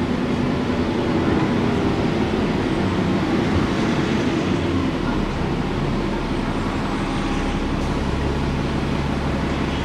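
Alexander Dennis Enviro 400 double-decker bus under way, its Cummins ISBe diesel engine running steadily with road and body rumble, heard from inside the bus. A low engine drone firms up about halfway through.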